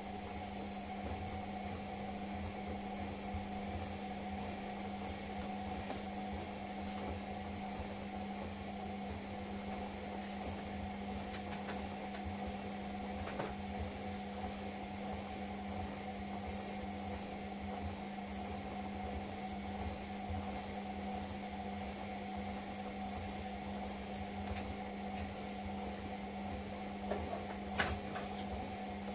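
Indesit washing machine running mid-cycle with a steady electrical hum and a few faint ticks and clicks, the plainest near the end.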